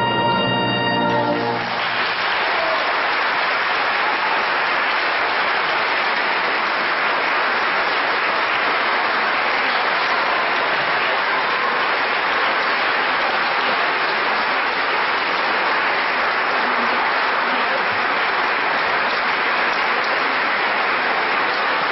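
A brass ensemble's final held chord cuts off about a second and a half in, followed by steady audience applause.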